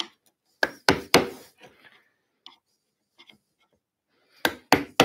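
Mallet striking a mortice chisel as it chops into wood: three or four sharp knocks in the first second or so, a quiet spell with a few faint ticks, then two more quick knocks near the end.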